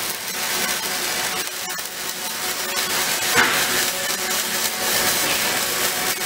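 Robotic MIG welding arc crackling steadily as the robot's wire-fed torch lays a weld, a dense, continuous spatter crackle.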